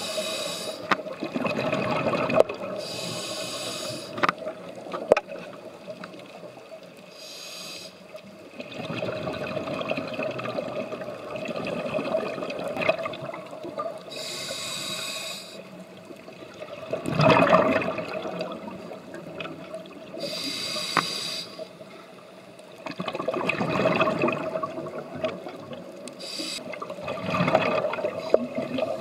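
Scuba diver breathing through a regulator underwater: a hiss on each inhale and a gurgling rush of exhaled bubbles, repeating about every six seconds.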